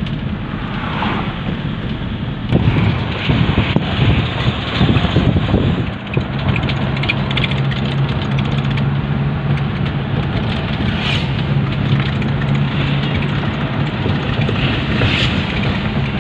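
Vehicle engine and road noise heard from inside the cabin while driving: a steady low hum under a rushing noise. About two and a half seconds in there are a few seconds of louder, rougher rumbling.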